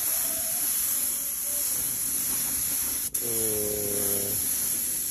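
Paint spray gun hissing steadily as it sprays primer onto a wheel rim; the hiss cuts out for an instant about three seconds in.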